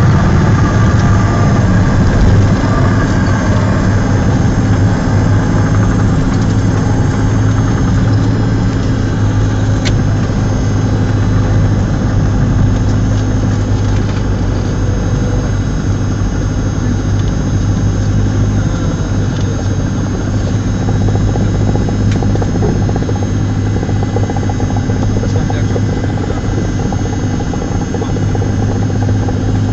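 Cessna 172's piston engine and propeller heard from inside the cockpit, running at low power during the landing rollout: a steady low drone with a constant hum that eases slightly over the stretch.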